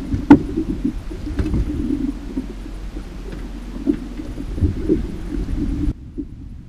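Wind and water noise on a small drifting boat, with a few sharp knocks on the deck in the first couple of seconds; the higher hiss cuts out abruptly near the end.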